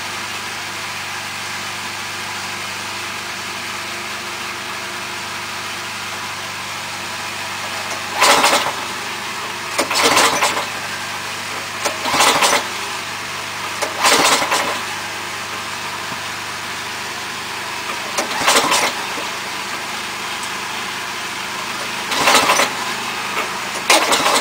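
A snowblower's 10.5 hp Tecumseh Snow King engine running steadily, with seven short bursts of about half a second each from about eight seconds in: attempts to crank a second cold snowblower engine, a Tecumseh Snow King on a 2003 Toro Powershift 1028, that does not catch.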